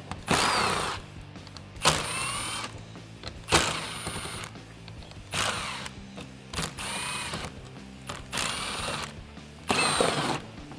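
Cordless impact gun running in about seven short bursts, each spinning up and winding down, as it backs 7 mm screws out of a car's plastic belly pan.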